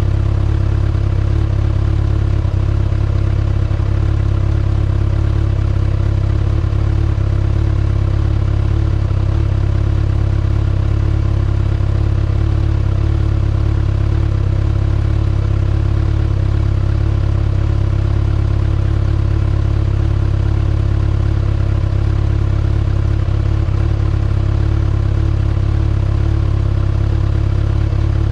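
2019 Kawasaki ZX-6R's inline-four engine running steadily at a constant speed through its stock exhaust, with no revving.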